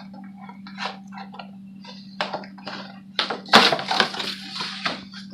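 A boxed Elsa doll's packaging being torn and pulled open by hand: a string of irregular rustling and cracking noises, loudest a little past the middle.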